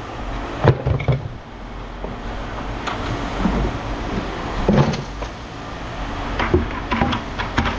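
Scattered sharp metal knocks and clanks, a few seconds apart, from scrap metal being worked on, over a low steady rumble.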